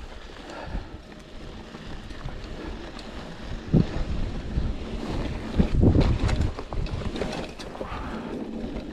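Wind buffeting the microphone over the rumble of a Specialized Pitch mountain bike's tyres rolling on a rocky dirt trail, with louder knocks as the bike jolts over bumps about four seconds in and again around six seconds.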